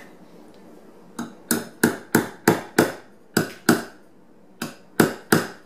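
Hammer tapping the shaft into a plastic washer door-closer piece braced on a block of wood, pressing it in for a tight fit. About eleven sharp taps in quick groups begin about a second in.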